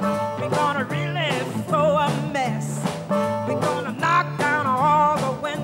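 A woman singing a Chicago blues with a wavering vibrato, backed by an electric blues band of guitar, bass guitar and drums.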